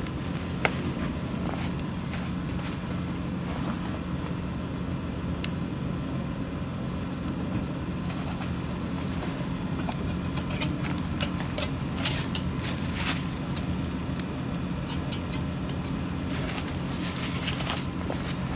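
Wood fire crackling, with scattered sharp pops that come thicker in two spells in the second half, over a steady low hum.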